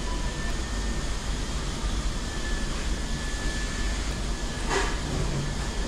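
Steady low rumble of indoor background noise with a faint steady high tone in it, and one brief noise a little under five seconds in.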